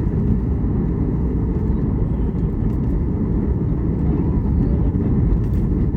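Cabin noise inside a Boeing 737 MAX 8: a steady low rumble of its CFM LEAP-1B engines and rushing air, heard from a passenger seat.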